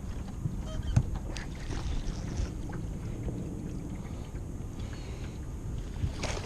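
Low, steady wind rumble on the microphone, with a few light clicks and knocks.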